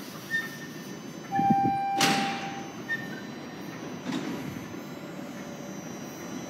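Bombardier Toronto Rocket subway train's doors opening at a station: a clunk and a steady single-tone beep lasting about a second and a half, with a short hiss about two seconds in and a fainter one about four seconds in.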